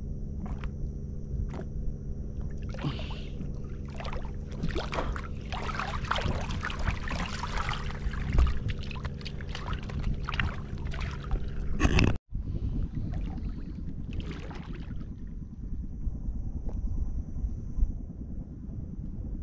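Small fishing boat's engine running steadily, with water splashing around the hull; about twelve seconds in the sound cuts off abruptly and the engine is gone, leaving a low rumble of wind on the microphone and water.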